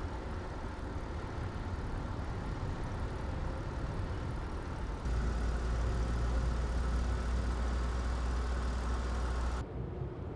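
Steady outdoor road-traffic rumble with a low hum underneath. It steps up suddenly about halfway through, heavier and louder, then drops back abruptly near the end.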